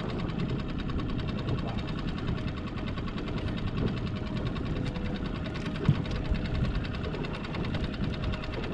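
A small motor running steadily, with one sharp knock about six seconds in.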